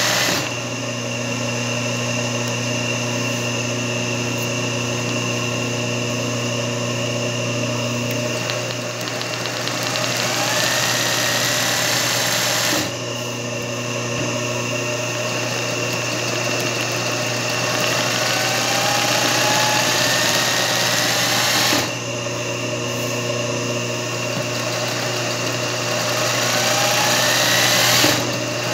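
Singer 20U industrial zigzag sewing machine running continuously while stitching satin-stitch machine embroidery, with a steady motor hum. Its speed climbs in a rising whine several times and drops back abruptly, about 13 and 22 seconds in and again at the very end.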